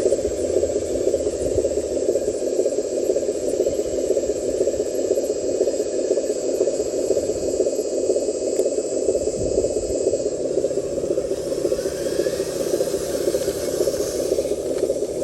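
Radio-controlled model truck running steadily: a dense, constant drone with a faint high whine above it that fades out about two-thirds of the way through.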